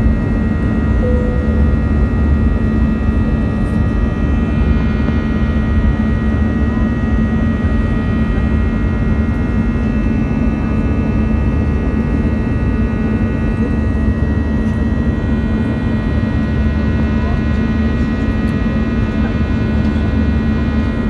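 Turbofan engines of an Airbus A320-family airliner at climb power, heard inside the cabin just after takeoff: a steady roar with a deep rumble, a low drone and a set of high whining tones from the fans.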